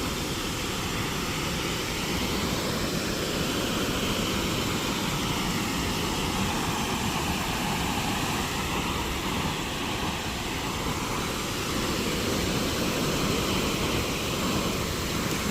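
Steady roar of rushing water pouring over a low-water dam drop, with the tone slowly wavering.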